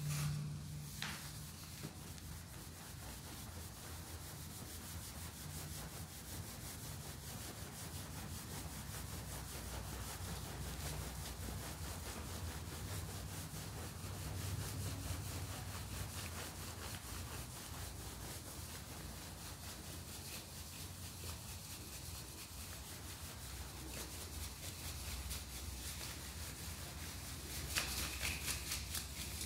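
Dry powdered cleanser (Ajax mixed with baking soda) shaken and sifting out of a stainless steel bowl onto a powder-covered surface: a steady gritty rubbing hiss of fine grains. It gets louder and more crackly near the end.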